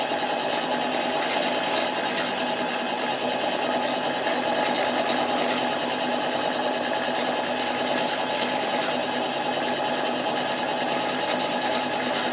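Harbor Freight 7x10 mini lathe running steadily, its motor whining, while it machines a Husqvarna 372 chainsaw cylinder to bring it true.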